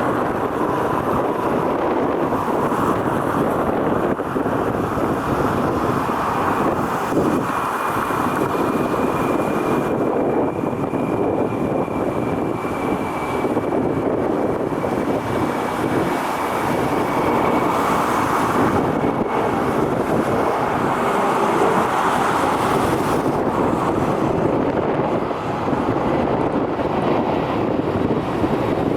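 Wind buffeting the microphone over a steady roar, with a faint high whine that slowly falls in pitch from about six seconds in to about twenty.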